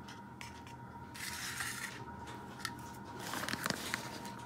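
Thin plastic bag rustling and crinkling as hands handle it, in two bursts, with a few light clicks in between.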